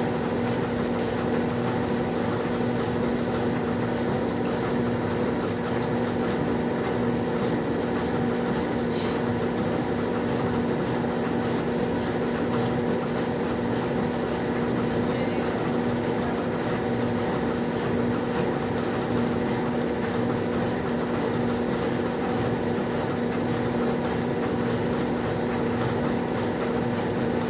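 Top-loading washing machine running, with a steady motor hum at a constant pitch.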